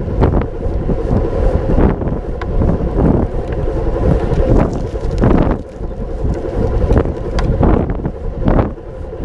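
Heavy wind buffeting on the microphone: a loud, uneven low rumble with scattered short knocks.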